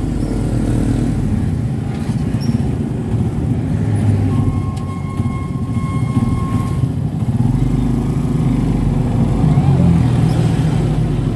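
Road noise of a vehicle driving at speed, heard from inside the cabin: a steady low rumble of engine and tyres. A faint thin tone sounds for about two and a half seconds in the middle.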